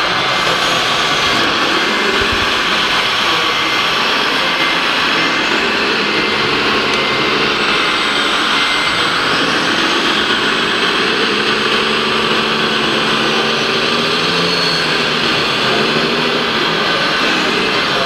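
Radio-controlled MAN three-axle model tipper truck running with a steady whine that wavers in pitch, as its hydraulics raise the loaded tipper body.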